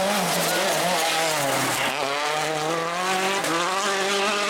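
Citroën DS3 WRC rally car engine running hard through a corner: its pitch falls over the first two seconds as it brakes and shifts down, then climbs again as it accelerates away.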